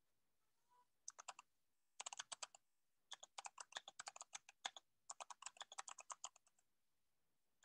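Faint keystrokes on a computer keyboard, typed in short uneven runs with pauses between.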